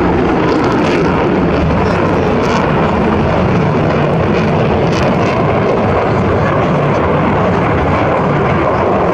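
Aircraft engines running loud and steady.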